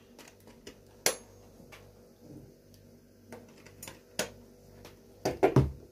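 Scattered clicks and knocks of things being handled and set down on a table: a sharp click about a second in, another about four seconds in, and a short cluster of knocks ending in a thud near the end.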